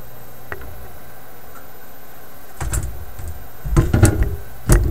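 Hand tools being handled and set down on a wooden workbench: a light click, then several dull knocks and clunks in the last two seconds. A steady low hum runs underneath.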